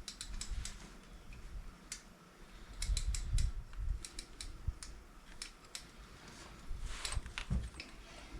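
Irregular metallic clicks and clinks of hand tools being fitted and worked on a motorcycle's hex-head oil drain plug, with a few dull low thumps.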